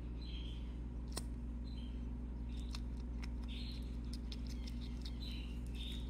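Nestling birds giving short, high-pitched begging chirps, repeated about every second, over a steady low hum. Light clicks of the stirring stick against the small plastic cup of hand-feeding formula come in between.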